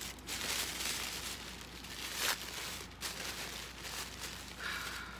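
Plant shipping wrap being handled and unwrapped by hand: irregular rustling and crinkling, with one sharper crinkle a little past two seconds in.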